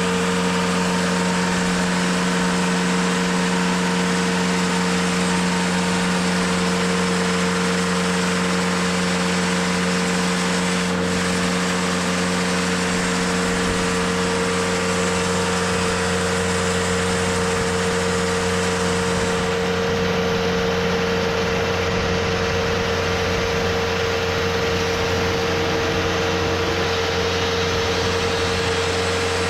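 TimberKing 2520 portable sawmill's engine running at a steady speed, an even hum with no change in pitch or loudness.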